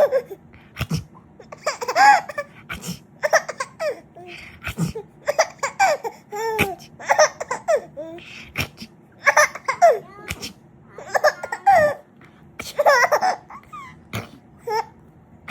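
A six-month-old baby laughing in repeated short bursts, a new round every second or so, with a few short sharp sounds between the laughs.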